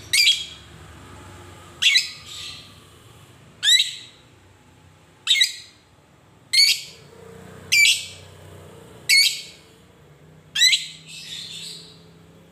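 Fischer's lovebird giving sharp, shrill single calls, eight of them at steady intervals of about a second and a half, each with a quick bend in pitch.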